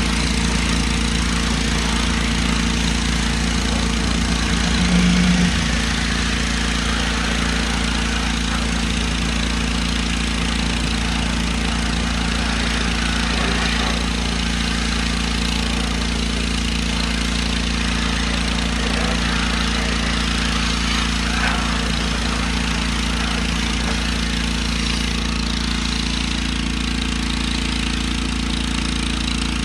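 Engine-driven pressure washer running steadily while its jet sprays water onto a car's wheel and body, a constant motor hum under the hiss of the spray. The hum briefly gets louder about five seconds in.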